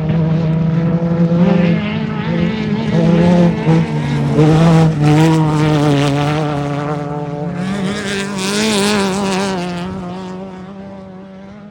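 Off-road race vehicle's engine running loud at speed, its pitch wavering up and down with the throttle, with a rushing hiss swelling near the end as it fades away.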